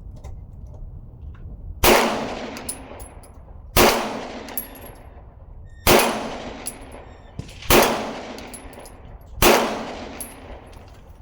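Springfield XD Mod.3 pistol firing five shots, about two seconds apart, each a sharp report with a fading echo.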